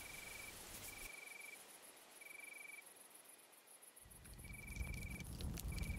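An insect singing faintly in short, evenly pitched trills, five of them, each about half a second long and spaced about a second apart. A low rumble rises from about four seconds in.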